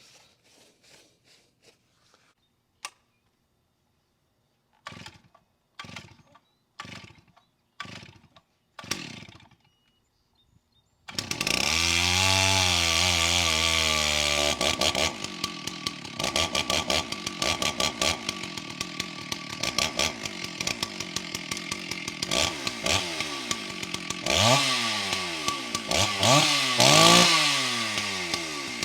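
Stihl 064 two-stroke chainsaw being pull-started: about six short tugs on the starter cord, then it fires about eleven seconds in. It runs at a high, steady fast idle for a few seconds, settles, and is revved up and down several times near the end.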